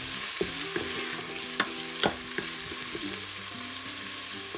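Chopped onions sizzling in oil in an Instant Pot's inner pot, stirred with a wooden spoon that scrapes and knocks against the pot a few times.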